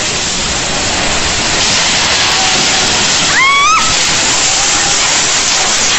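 Torrential rain and gusting wind of a severe storm, a loud steady rushing hiss of water, with a brief high-pitched rising sound about three and a half seconds in.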